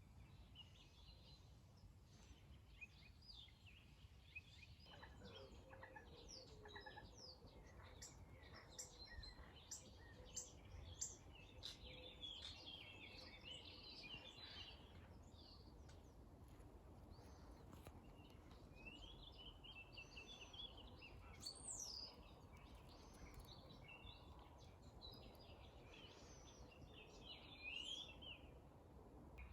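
Faint morning birdsong from several songbirds: quick high chirps and trills, sparse at first and busier from about five seconds in, over a steady low rumble.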